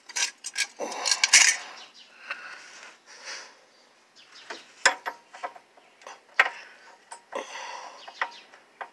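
Hand tools clinking against metal: a socket and wrench tapping and knocking on the power steering line fitting and each other. A quick cluster of sharp clinks about a second in, then single clinks every second or so.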